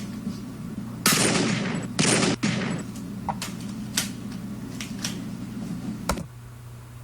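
High-powered pistol sound effect: two loud gunshots about a second apart, each trailing off in a long echoing tail, followed by a few faint sharp clicks, over a low steady hum that stops near the end.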